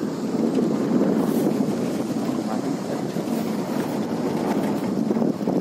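Steady rumble of a motor vehicle on the move, with wind buffeting the microphone.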